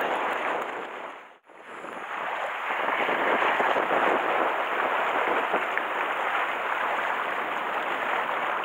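Sea waves washing against a rocky shore, with wind blowing on the microphone. The sound drops out briefly about a second and a half in.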